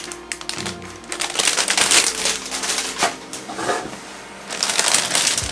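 Clear plastic bags around model-kit sprues crinkling as they are handled, set down and picked up. There are two longer spells of rustling, one in the middle and one near the end.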